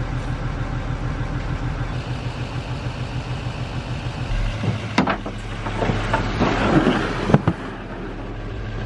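Motor vehicle engine running steadily, with a couple of sharp knocks about five and seven and a half seconds in.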